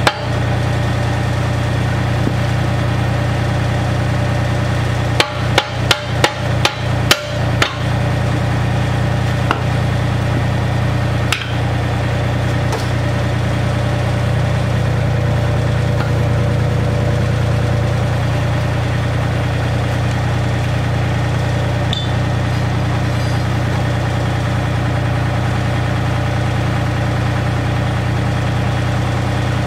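Mini excavator's diesel engine idling steadily, with a quick run of about eight hammer blows on steel about five seconds in and a single blow a few seconds later.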